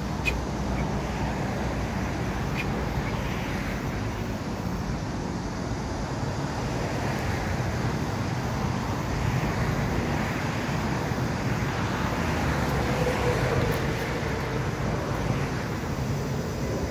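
Road traffic noise: a steady wash of tyre and engine sound that swells in the second half as vehicles pass.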